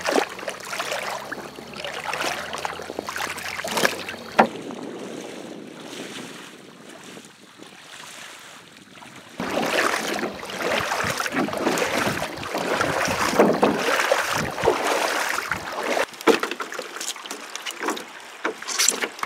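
Water splashing and rushing around a canoe being poled along a river, with irregular knocks and splashes, wind buffeting the microphone and a sudden rise in level about nine and a half seconds in.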